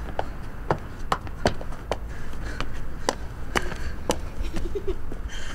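Hurried footsteps and scuffling on paving, roughly two steps a second, over a low steady rumble, with a brief faint voice a little after four seconds in.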